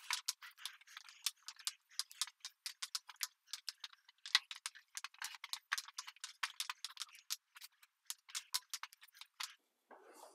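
Quiet, irregular stream of small sharp clicks and crackles as a squeegee pushes wet metallic epoxy across a concrete floor and spiked shoes step through the coating.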